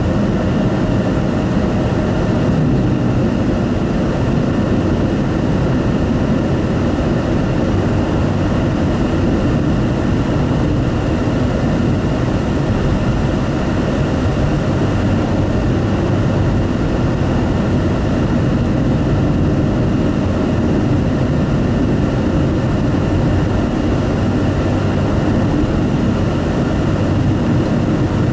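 Steady road noise of a car driving at highway speed, heard inside the cabin.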